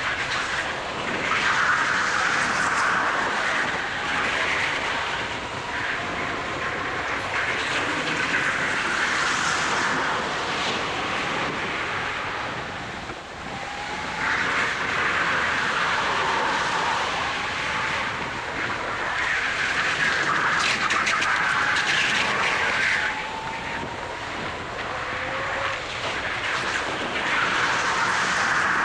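Go-kart at racing speed, heard from on board. The running noise swells and fades every few seconds, and a faint whine rises in pitch several times as the kart speeds up.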